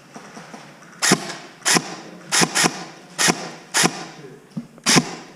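Airsoft gun firing single shots in an uneven series, about seven sharp cracks roughly half a second to a second apart, two of them in quick succession.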